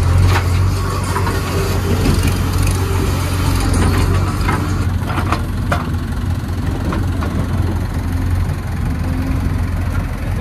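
JCB 3DX backhoe loader's diesel engine running steadily while the backhoe bucket digs into earth, with a few short knocks and scrapes from the bucket between about four and six seconds in.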